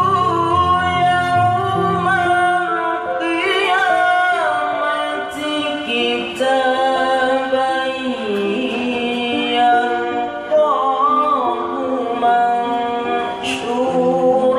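A qari's melodic Quran recitation in the tilawah style: a voice sings long, ornamented phrases that wind up and down in pitch.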